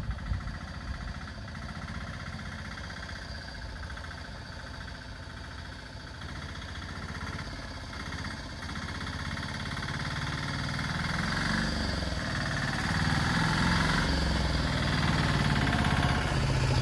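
Small engine of a three-wheeler auto-rickshaw (tuk-tuk) running at low speed, its steady low chug growing gradually louder as it draws up and passes close by.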